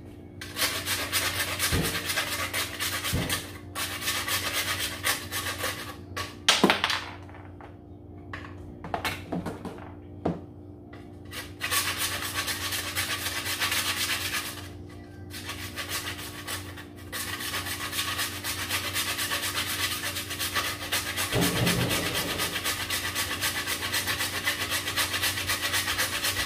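Ginger being grated on a metal box grater: quick repeated rasping strokes in long runs, broken by pauses of a few seconds, with a few knocks between the runs.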